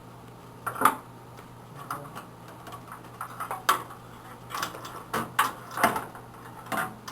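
Irregular metallic clinks and knocks, about a dozen, as a computer power supply is worked loose and lifted out of a steel PC case, the loudest a knock about a second in.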